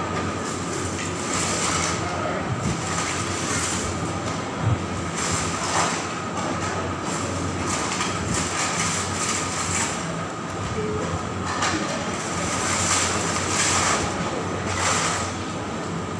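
Steady mechanical hum with a thin high whine, broken every second or two by short crackles.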